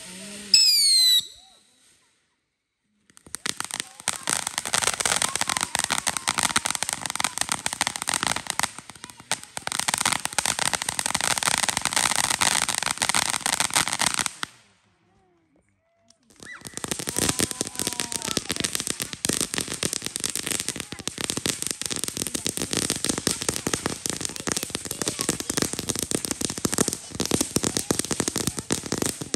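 Consumer ground fountain fireworks spraying sparks with a dense, continuous crackle. It opens with a loud pop and a few quick falling whistles, and the crackle stops twice for a second or two of silence before starting again.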